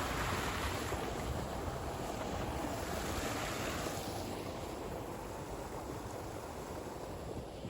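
Steady rush of a river running high after heavy rain, with wind buffeting the microphone.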